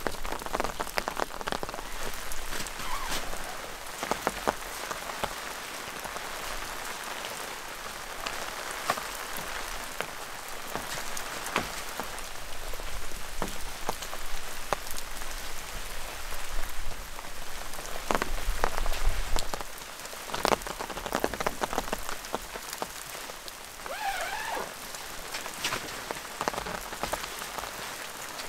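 Steady rain falling, with many sharp ticks of single drops striking close by.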